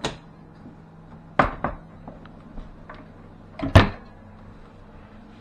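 A few sharp clunks and knocks of a door being opened and handled, the loudest two pairs about a second and a half and nearly four seconds in, over a faint steady low hum.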